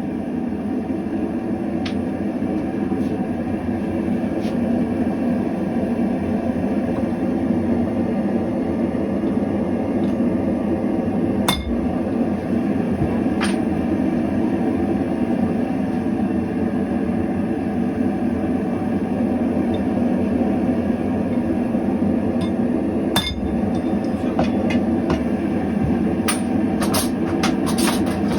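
Hammer blows on steel number stamps being struck into a stainless steel bar, a few sharp metallic strikes spread out, the strongest about a third and four-fifths of the way in, then a quick run of light clinks near the end. Under it runs a steady rushing noise.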